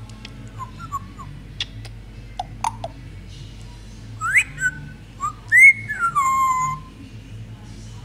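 African grey parrot whistling: a few short clicks and chirps, then from about four seconds in a sharp rising whistle and a longer whistle that rises and then falls in steps.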